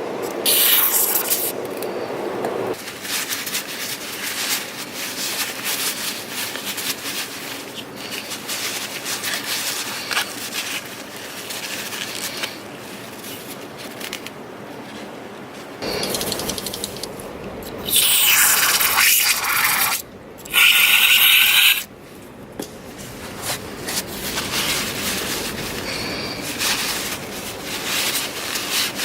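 Hand work on a car's AAC valve being cleaned: irregular rubbing and scraping, with two loud hissing bursts of aerosol cleaner spray, about two seconds and one second long, about two-thirds of the way through.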